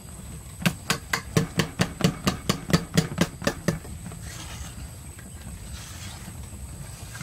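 Wire whisk beating thick batter in a stainless steel bowl, its wires knocking against the bowl's side about four times a second for about three seconds. It then gives way to a softer swishing as the batter is stirred.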